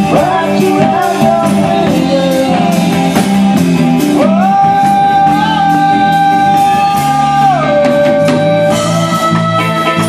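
Live rock band playing: electric bass, electric guitar and drum kit with a lead vocal. About midway a long note is held for some three seconds, then steps down to a lower pitch.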